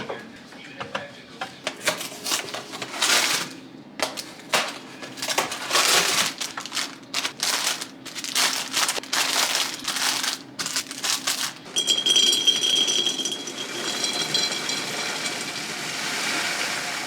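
Groceries and containers handled and set into a fridge: irregular knocks and clatters of plastic and glass items with rustling and scraping. In the last few seconds this gives way to a steady hiss with a faint high whine.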